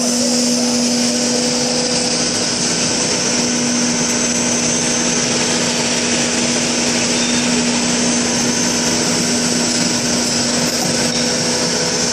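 LDPE film extruder line running: a steady machine drone with a constant low hum and a strong airy hiss, holding an even level throughout.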